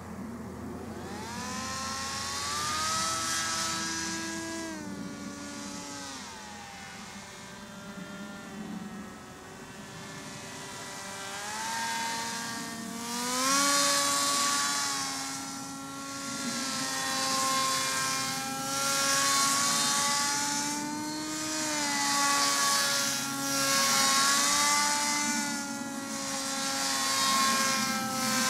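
Battery-powered electric motor and propeller of a radio-controlled paramotor in flight: a steady whine whose pitch rises about a second in, drops around five seconds in and climbs again near the middle. From then on the sound swells and fades every couple of seconds.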